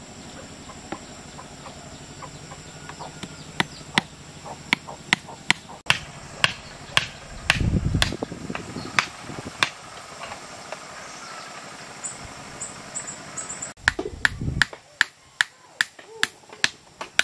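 Hammer striking the top of a wooden stake to drive it into the ground, with steady sharp blows about two a second. The blows come in two runs with a pause of a few seconds between.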